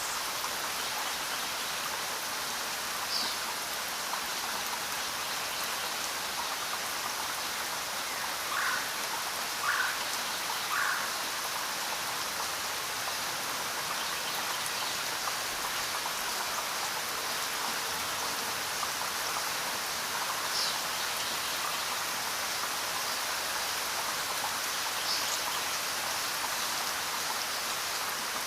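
Steady rain falling, an even hiss of drops, with three short chirps about a third of the way in and a few fainter high chirps later.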